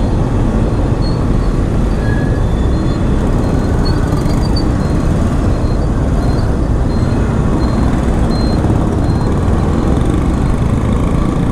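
Riding a Yamaha FZ motorcycle through city traffic: a steady, loud rush of wind on the microphone mixed with engine and road noise from the bike and the traffic around it.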